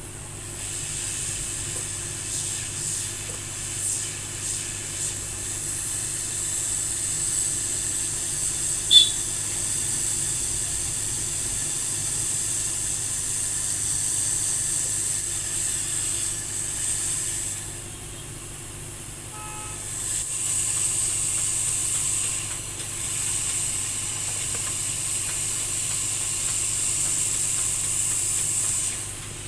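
Hot air rework station blowing a steady hiss of air, used to desolder or resolder a part on a mobile phone's circuit board. The air stops for about two seconds around eighteen seconds in, then starts again. A single short high tick about nine seconds in.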